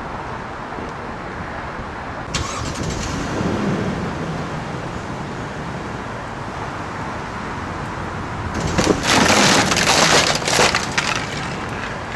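A wooden acoustic guitar cracking and splintering as a Lexus LX 570 SUV's tyre rolls over it: loud crunching and snapping for about two seconds, starting about nine seconds in. The SUV's engine is running underneath.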